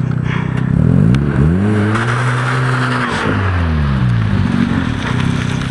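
Mazda RX-7's twin-rotor rotary engine revving: it climbs in pitch from idle about a second in, holds briefly, then falls back to idle.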